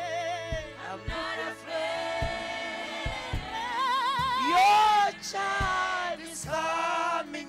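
Gospel music: a singer holds long notes with a wide vibrato over backing voices, a steady bass line and low drum hits.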